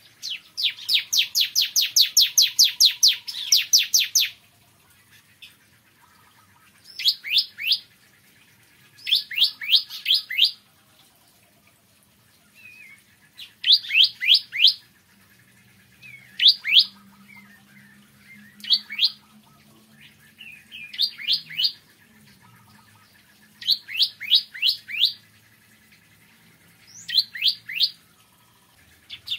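Ciblek kristal, a bar-winged prinia, singing. It opens with a fast run of sharp, high chirps lasting about four seconds, then sings short bursts of three to five chirps every couple of seconds.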